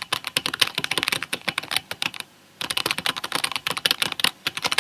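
Rapid typing on a computer keyboard: a dense run of key clicks, a short pause a little over two seconds in, then more fast typing.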